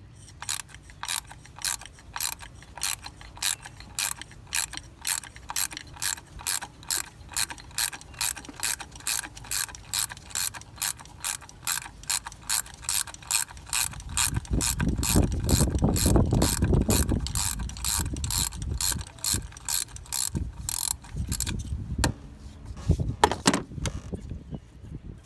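Hand ratchet clicking steadily, about two or three clicks a second, as it backs out the bolt holding the cam position sensor on a 2.7 L V6. A louder low rumble joins in the middle. The clicking stops a few seconds before the end, and a few louder knocks follow.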